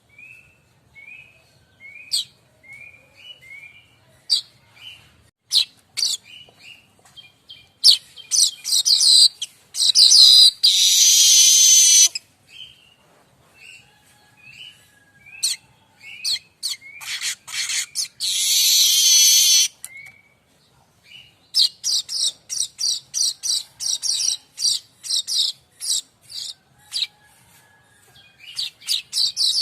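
Streaked weaver (manyar kembang) singing. Short chirps and sharp ticks give way to long, dense, high buzzy wheezes about 8 s and 17 s in. A fast run of ticks near the end leads into another buzz.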